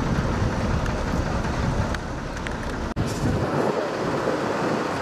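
Outdoor field noise dominated by wind rumbling on the microphone, with vehicle noise mixed in; it breaks off abruptly about three seconds in and resumes with less low rumble.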